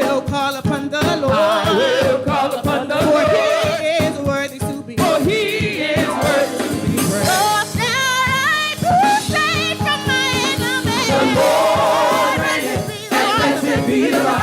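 Live gospel praise music: a praise team of singers with a band. A lead voice sings wavering, sliding runs over a steady beat.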